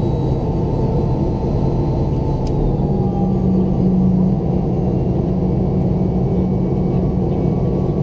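Boeing 717 jet with its Rolls-Royce BR715 turbofan engines running: a steady, loud rumble with a low hum that grows stronger about three seconds in.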